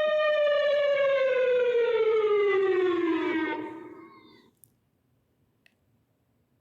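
Civil defence siren holding a steady tone, then winding down, falling in pitch and fading out about four seconds in.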